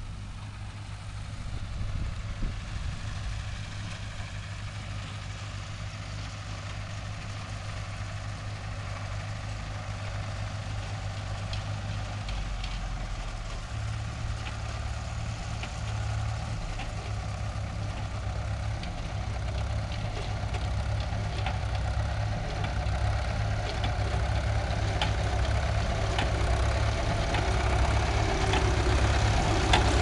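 Tractor engine and the Massey-Harris-Ferguson 701 baler's own engine running steadily, the low engine note stepping up about halfway through and growing louder towards the end, with faint regular ticks in the second half.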